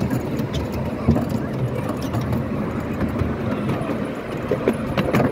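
Miniature railway train running along the track, heard from on board: a steady low running noise with occasional sharp clicks from the wheels over the rails.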